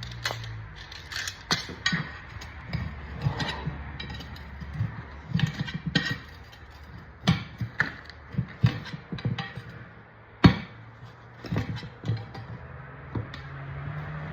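Scattered metallic clicks, clanks and knocks from hand tools and wheel parts being handled while a quad tire is worked on, with the loudest knock about ten seconds in. A low steady hum stops just under a second in and comes back near the end.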